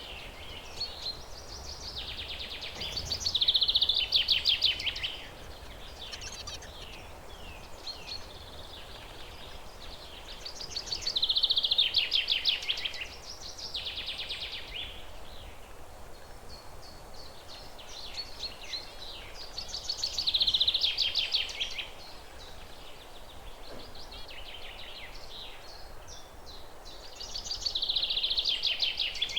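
Zebra finch song: loud buzzy phrases that repeat about every eight seconds, with softer chirps between them, over a faint steady background hiss.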